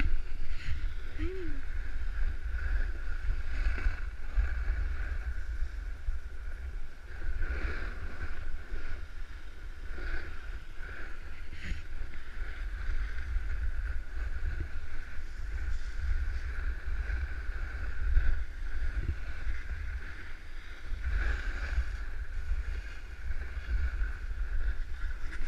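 Snowboard sliding and scraping over snow, with wind buffeting a body-worn camera's microphone as a heavy, uneven rumble. A steady high-pitched hum runs underneath.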